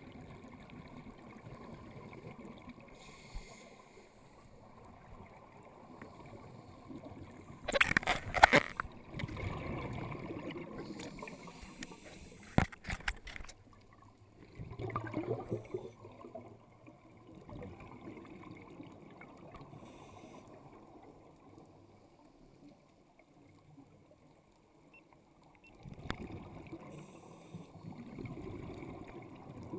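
Underwater scuba dive audio: a muffled steady water hiss, broken by the diver's exhaled bubbles gurgling from the regulator in a few bursts. The loudest burst comes about eight seconds in, and a few sharp clicks follow a few seconds later.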